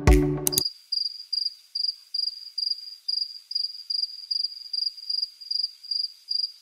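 Cricket chirping: a high chirp repeating evenly about two and a half times a second, after a short tail of background music cuts off about half a second in.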